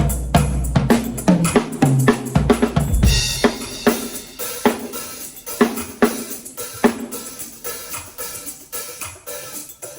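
Drum kit playing a beat of snare, bass drum and hi-hat or cymbal hits. Low bass notes sound under it for the first three seconds or so and then stop, leaving the drums alone.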